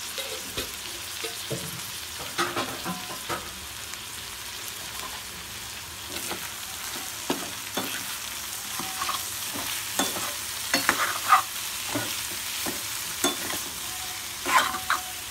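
Cauliflower and potato pieces frying in oil in a metal pan with a steady sizzle, while a metal spoon stirs them, scraping and knocking against the pan. The scrapes are loudest in a cluster about two-thirds through and again near the end.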